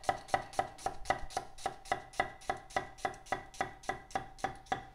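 Chef's knife chopping a white onion on a wooden cutting board: quick, evenly spaced knocks of the blade on the board, about four to five a second, stopping just before the end.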